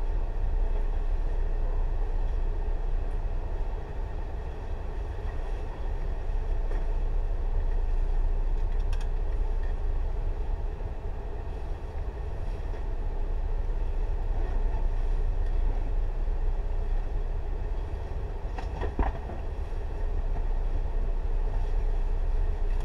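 Tobu 6050-series electric train standing at a station, not moving: the steady low hum and whir of its onboard equipment, with a short knock about 19 seconds in.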